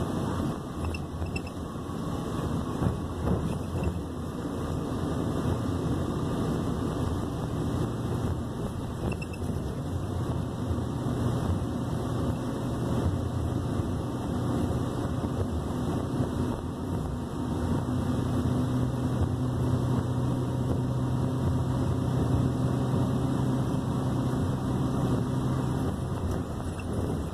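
A bus's engine running with road noise, heard from inside the cabin as it drives. The low engine hum grows stronger in the second half.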